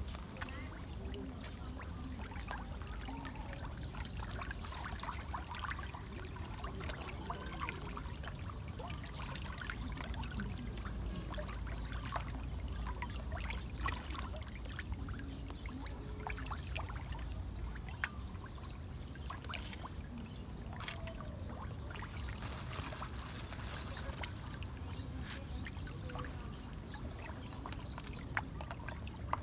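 A dense crowd of fish churning and splashing at the water's surface: a steady stream of small splashes and sloshing, full of quick sharp ticks.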